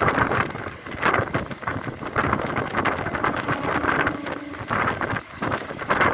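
Wind buffeting the microphone from the window of a moving vehicle, in uneven gusts, with the vehicle's running noise underneath.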